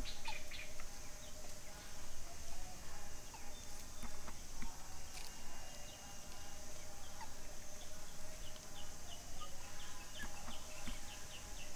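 Outdoor wildlife ambience: a steady high hum with scattered short chirps, and a quick run of chirps near the end.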